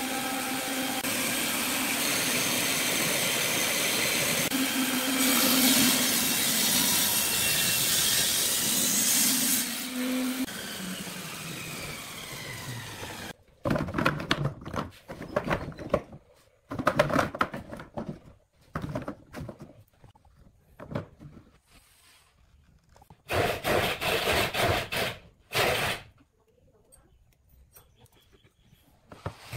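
Wood lathe running with a tool cutting the spinning wood, a steady noise with a faint whine that falls in pitch as it slows. It stops abruptly about halfway through. Several short bursts of tool-on-wood noise follow, with quiet gaps between them.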